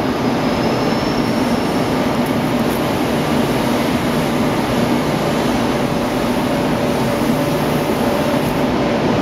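Mitsubishi ML3718 LVP Plus II 4000-watt CO2 laser cutter running while it cuts metal plate: a steady, loud, noisy drone of the machine with a low hum through it.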